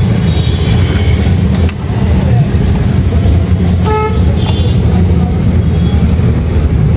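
Steady loud rumble of road traffic, with a short vehicle horn toot about four seconds in.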